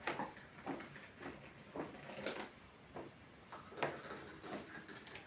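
Tea being poured from a metal teapot into small glass tea glasses: a series of short, light clinks and splashes, roughly one every half second to second.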